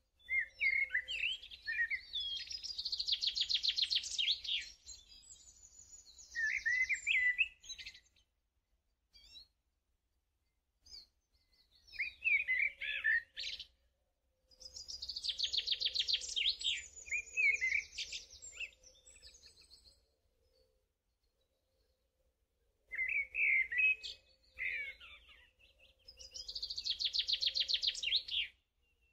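Birdsong: a small bird's chirps and fast trills in phrases a few seconds long, separated by silent gaps. The same run of phrases comes back about every twelve seconds.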